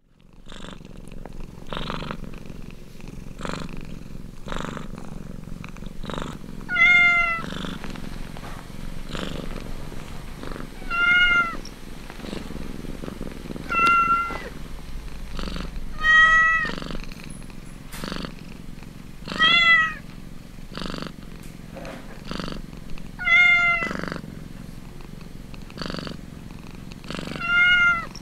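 Cat purring steadily in regular pulses while nursing kittens suckle. About every three to four seconds a cat gives a short, high-pitched mew, seven in all.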